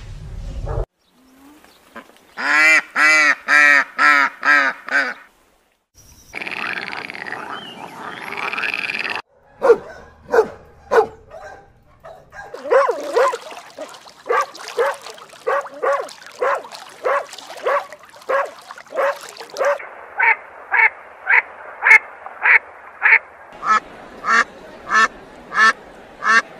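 A low rumble from elephants cuts off in the first second. Then comes a run of different animal calls, each a series of short repeated calls with its own pitch and pace. It ends with mallard ducks quacking about twice a second.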